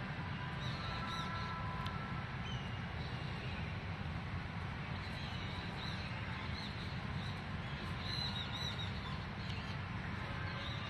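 Outdoor ambience: a steady low rumble with faint high bird chirps now and then, loudest about eight seconds in.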